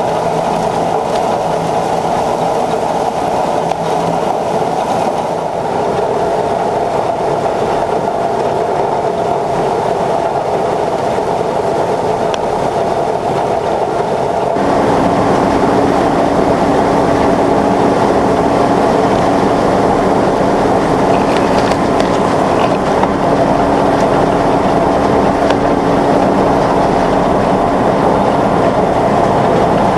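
John Deere 9500 combine running steadily, a loud mechanical drone with clattering machinery. About halfway through it gets louder and fuller, and a new steady hum joins in.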